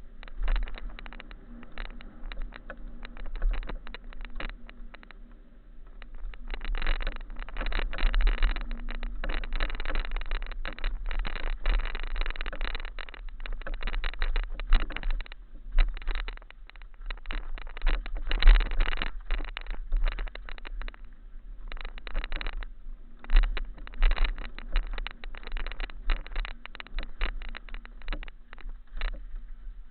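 Mountain bike descending a rocky trail: a continuous, irregular clatter of rattles and knocks from tyres and frame bouncing over stones, louder from about six seconds in, over a low rumble.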